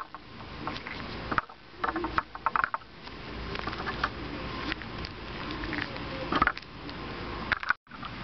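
Footsteps through dry grass and handling noise from a hand-held camera, with scattered rustles and clicks. The sound cuts out for a moment near the end.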